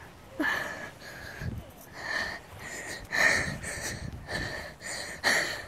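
Rapid, heavy panting close to the microphone, about two breaths a second.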